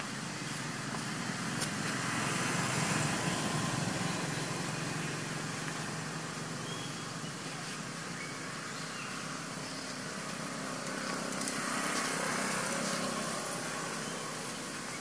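Steady outdoor background noise, a rushing hiss that swells twice, once early and once near the end.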